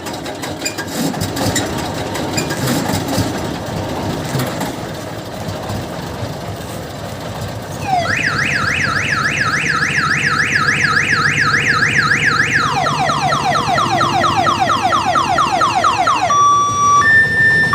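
Diesel engine of an odong-odong mini tourist train running. About eight seconds in, a loud electronic siren starts over it with a fast rising-and-falling yelp, about three sweeps a second. Near thirteen seconds it switches to a lower, rapid falling wail, and near the end to a two-tone high-low alternation.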